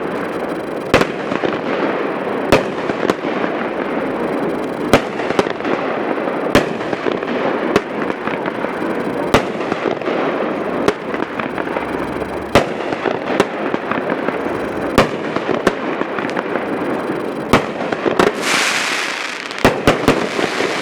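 Victory Vixen, a 12-shot 500-gram firework cake, firing: a long run of sharp launch thumps and aerial breaks about a second apart over a steady rushing noise, with a brief loud hiss near the end.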